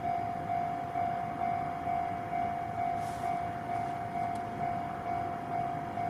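Japanese railway level-crossing warning bell ringing, one steady tone repeating evenly about twice a second, over a steady low rumble.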